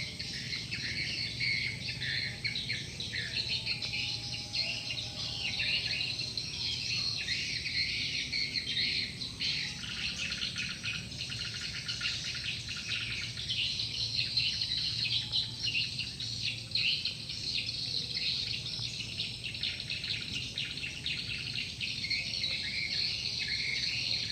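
Dense, continuous twittering of many swiftlets, a flock being drawn in by a swiftlet call-sound lure. A faint steady low hum lies beneath.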